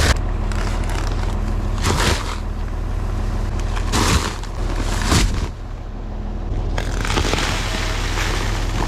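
John Deere 4430 tractor's six-cylinder diesel running steadily while a Great Plains grain drill is set down and dragged, with a few sharp clunks about two seconds apart and scraping, crackling noise from the drill working the soil.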